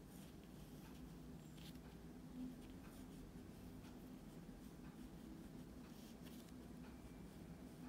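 Pen tip scratching faintly on paper as Chinese characters are handwritten, in short separate strokes with brief pauses between them, over a faint steady low hum.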